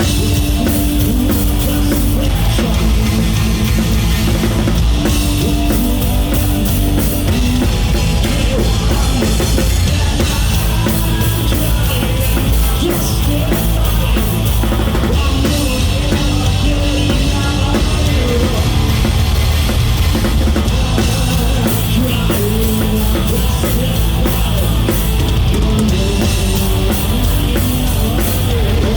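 Live rock band playing loud: a drum kit driving the beat over electric guitars and bass guitar, without a break.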